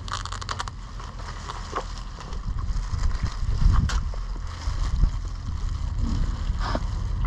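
A low steady rumble, with scattered short wet clicks and squelches from gloved hands handling a cow's heart and lungs.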